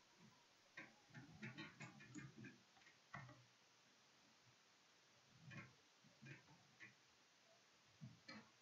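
Faint scattered clicks and knocks of a computer mouse being used, a quick cluster in the first few seconds and a few more near the end, over near silence.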